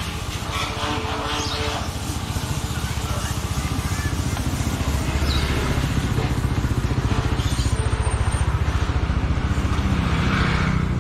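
Motorcycle engine running close by. Its even low pulsing grows louder over the first few seconds, then holds steady.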